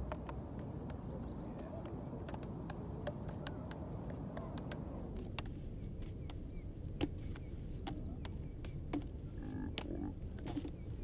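Plastic juggling clubs being thrown and caught in a two-person passing pattern: a quick, irregular run of sharp clicks and slaps as the clubs land in hands, over steady low background noise.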